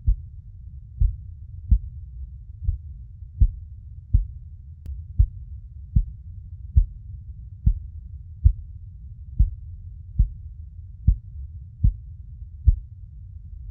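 A mother's heartbeat played as a baby-sleep sound: soft low thumps, a little over one a second, over a steady low rumble.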